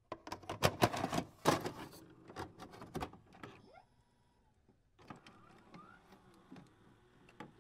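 VHS cassette being loaded into a VCR: a quick run of mechanical clicks and clunks, then after a short pause fainter clicks, a brief rising whir and a final click.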